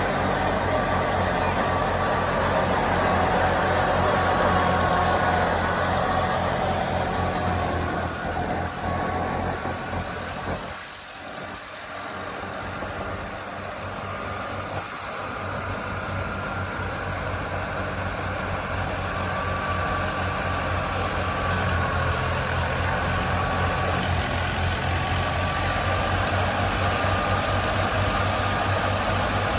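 Old Fiat 480 tractor's diesel engine running steadily, with a humming whir from the wheat thresher it drives. The sound dips sharply about eleven seconds in and builds back up over the following ten seconds.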